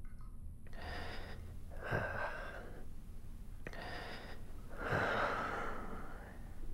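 A man breathing heavily and raggedly, four loud breaths in slow succession.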